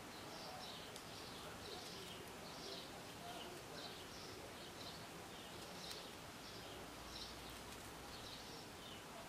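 Faint bird chirps, short and high, repeating irregularly about once a second over a low steady hiss.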